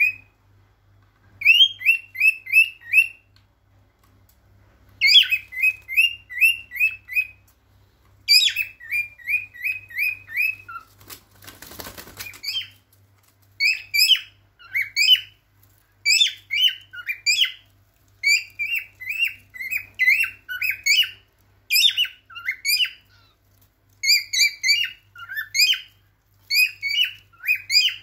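Male cockatiel singing its courtship song: phrases of quick, rising whistled notes, several a second, broken by short pauses. About twelve seconds in there is a brief rustling noise.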